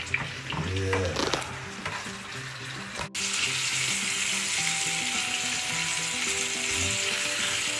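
Beef short ribs sizzling as they sear in hot olive oil, with a few clicks as pieces are laid and turned in the pan. About three seconds in the sizzle cuts out for an instant and comes back louder and steady.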